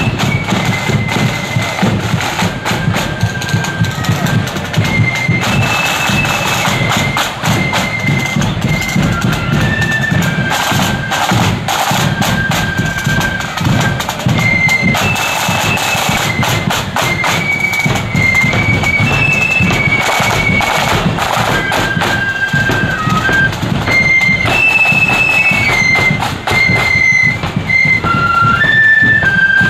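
Marching flute band playing: many flutes carry a high, stepping melody over side drums and a bass drum beating time.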